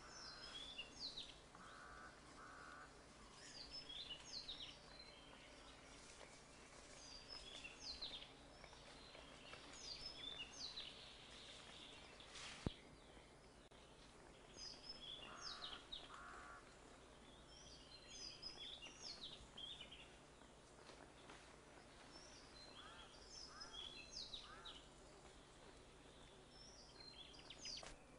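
Faint forest ambience with birds singing short phrases of high, quick chirps every couple of seconds, and a lower pulsed call now and then. A single sharp click comes about twelve seconds in.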